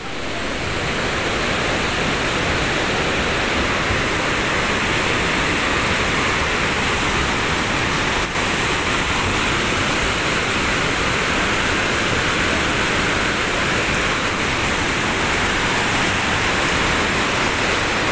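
The Swat River in heavy flood: fast, muddy floodwater rushing and churning with a steady, loud rush of turbulent white water.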